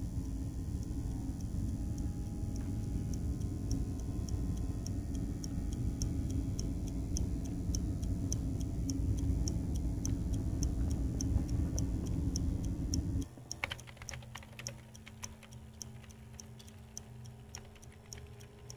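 Film sound design: a steady clock-like ticking, about three ticks a second, over a loud low drone. The drone cuts off suddenly about 13 seconds in, leaving the ticking with a faint steady hum and a few clicks.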